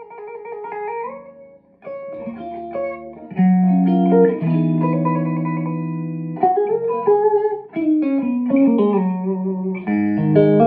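Tokai electric guitar played clean through a Komet 60 valve amp with KT66 power tubes into a Hiwatt 4x12 cabinet: improvised single notes and chords. There is a short pause about a second and a half in, then a chord rings out for about three seconds before a run of falling notes.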